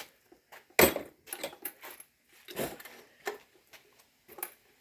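Johnson JW-10 outboard's repaired recoil starter being pulled: two main pulls about two seconds apart, with lighter mechanical clicks and rattles between them as the rope rewinds.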